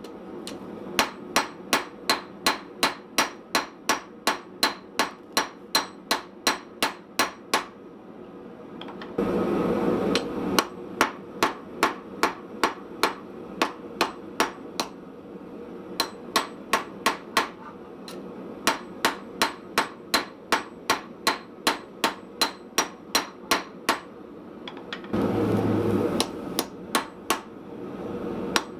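Hand hammer striking hot steel on a small Austrian/German pattern anvil, a steady run of ringing blows at about two to three a second. The blows stop twice, each time with a short rushing noise, about a third of the way in and again near the end.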